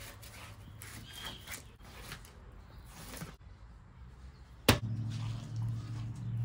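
Knife cutting and scraping through a fish fillet on cardboard as the skin is taken off. Near the end comes one sharp click, then a steady low hum.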